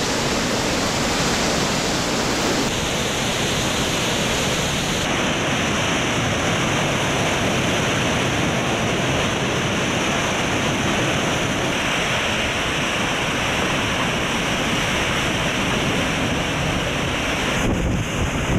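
Hurricane wind driving heavy rain: a loud, steady rush of noise whose tone shifts abruptly a few times, about three and five seconds in and again near the end.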